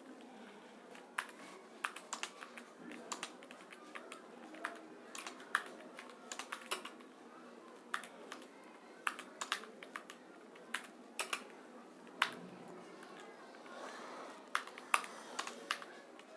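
Typing on a keyboard plugged into a phone by OTG: quick, irregular key clicks in short runs with brief pauses.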